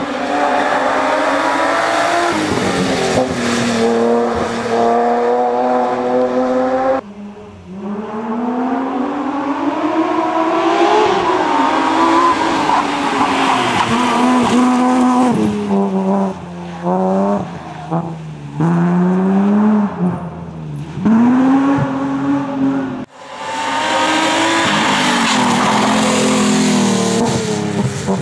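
BMW M3 rally car engine driven hard at racing pace, the pitch climbing under full throttle and dropping sharply at gearshifts and lifts off the throttle, with a run of quick dips about two-thirds of the way through.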